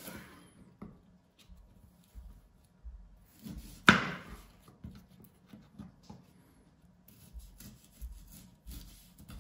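Chef's knife cutting pear on a wooden cutting board: one sharp chop of the blade through the fruit onto the board about four seconds in, with faint small taps and slicing sounds otherwise.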